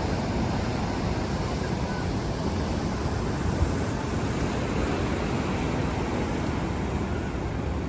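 Ocean surf on a sandy beach: waves breaking and washing ashore in a steady, continuous rush.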